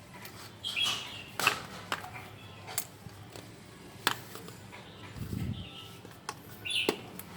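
Scattered clicks and knocks from handling a used e-bike battery pack and meter probes, with one duller thud a little after five seconds. Short bird chirps sound in the background about a second in and near the end.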